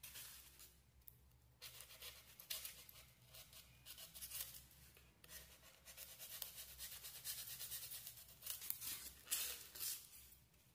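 Utility knife blade cutting and scraping through styrofoam (expanded polystyrene): faint scratchy strokes at irregular intervals as the foam is shaved down to carve a shallow relief.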